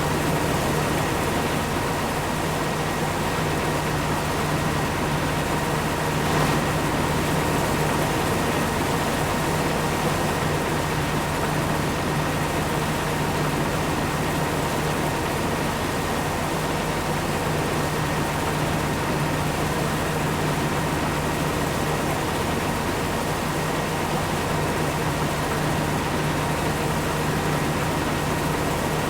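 Heavy farm machine's engine running steadily at constant speed, a continuous low hum with a faint steady whine above it.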